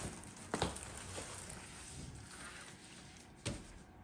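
Diamond-painting drill packets being handled: faint rustling of plastic packaging, with a light knock about half a second in and a sharper one near the end as something is set down.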